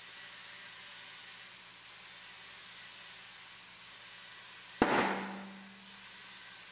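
Compressed air hissing steadily into a tire on a tire changer, then one sharp bang about five seconds in as the tire bead pops onto the rim, followed by a brief rush of air that fades within a second.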